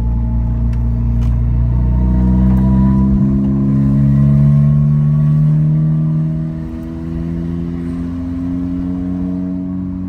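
Turbocharged 1.5-litre four-cylinder (L15B7) of a Honda Civic with an RV6 turbo and aftermarket inlet pipe, accelerating under load as heard from inside the car. The engine note climbs for several seconds, drops off about six and a half seconds in, then climbs again more slowly.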